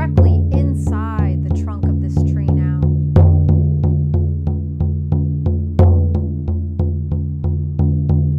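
Hand-held frame drum struck with a beater in a steady shamanic journey beat, about four strokes a second. Each stroke rings low, with a heavier accented stroke every few seconds.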